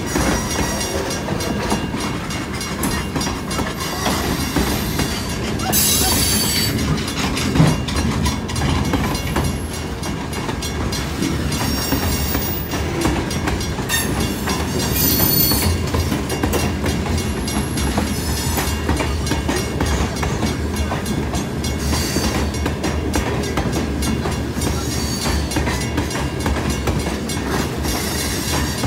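Freight train of boxcars and open hopper cars rolling past: a steady rumble and clatter of steel wheels on the rails, with a few short high squeals now and then.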